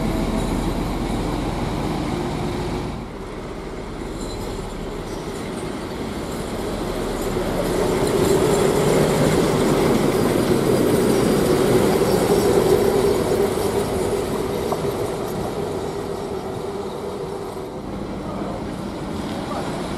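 SU46 diesel locomotive passing close along the platform. Its engine drone swells to a peak about eight to thirteen seconds in, then fades as it goes by.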